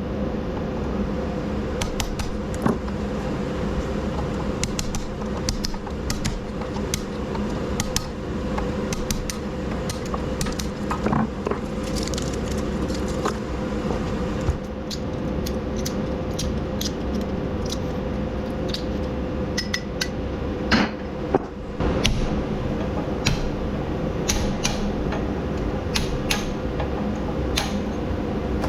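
Scattered metallic clinks and knocks of scrap electric-motor parts being handled and worked on, over a steady hum.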